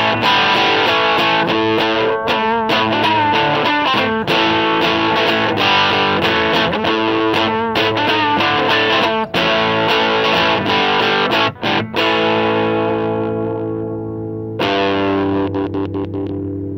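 Distorted electric guitar played through a small amp: a riff of chopped chords broken by short stops. About twelve seconds in, a chord is left ringing and fades for a couple of seconds before the riff comes back in.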